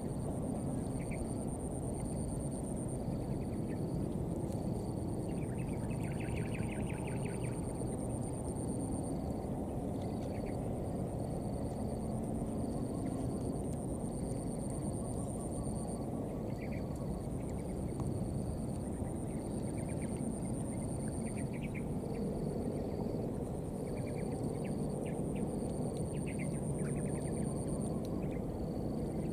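Outdoor ambience: a steady low rumble, insects trilling high and unbroken in long pulses, and brief bursts of rapid chirps every few seconds, busiest near the end.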